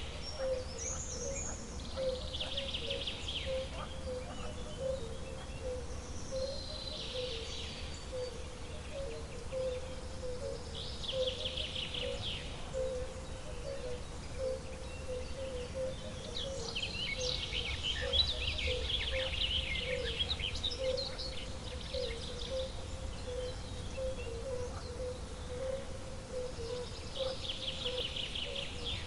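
Wild nature ambience: birds singing in short high phrases every few seconds, over a steady, low, pulsing trill and a low rumble.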